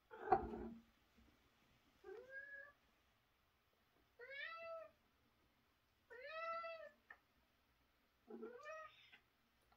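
Domestic cat meowing repeatedly: five meows about two seconds apart, each rising then falling in pitch.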